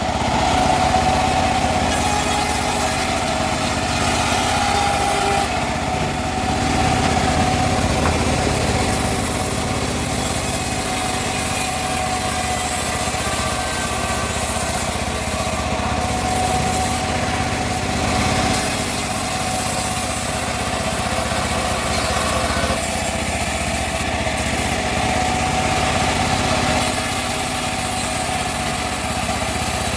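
Homemade bandsaw mill running steadily, its engine driving the blade as it cuts teak wood, with a steady whine over dense mechanical noise.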